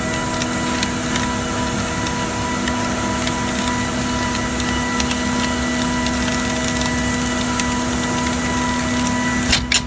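Edge banding machine running steadily, a constant mechanical hum with a few steady whining tones and scattered light ticks. There are two sharp clicks just before the end.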